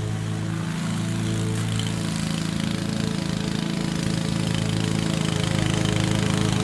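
Honda self-propelled lawn mower's single-cylinder four-stroke engine running steadily while mowing, getting a little louder near the end.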